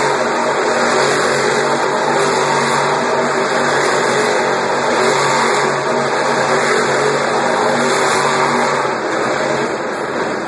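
El Toro Loco monster truck's supercharged V8 running hard, its revs rising and falling about once a second as the truck maneuvers in the dirt arena, heard across the stadium from the stands.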